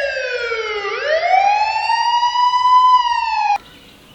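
Police siren wail: one long tone that falls, then rises and holds, and cuts off suddenly about three and a half seconds in.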